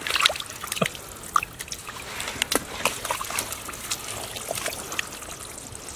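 Hands working in shallow muddy water: trickling and dripping, with many small, irregular splashes and plops.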